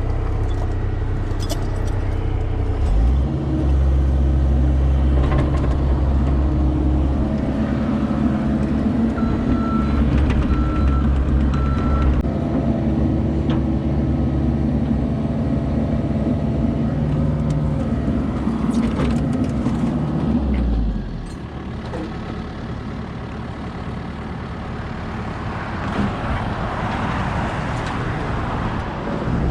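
Cat 305 mini excavator's diesel engine running under hydraulic load, its note stepping up about three seconds in and easing off about twenty-one seconds in.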